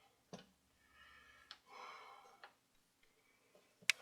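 Light clicks and taps of small metal parts of a record player's changer mechanism being handled, four in all, the sharpest near the end, with soft hissing noises between them.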